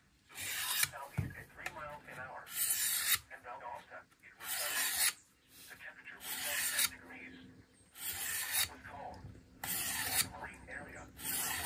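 A knife blade being sharpened by hand: steel scraping across a sharpener in repeated strokes, about one every second and a half, each a short rasping hiss.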